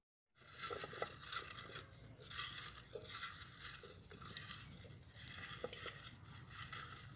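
Quiet scraping and light clinks of a utensil stirring in a metal cooking pot over an open wood fire, among irregular crackling and rustling.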